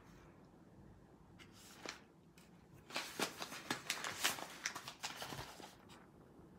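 Kraft-paper coffee bean bags crinkling and rustling as they are handled and set down on a wooden table, in a run of crackles about three seconds in that lasts a few seconds.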